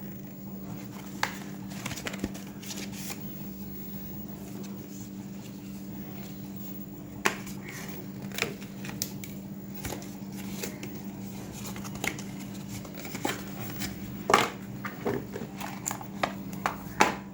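Scattered clicks, taps and crinkles from handling a smartphone's retail box and plastic wrapping, the sharpest a few seconds apart near the end, over a steady low hum.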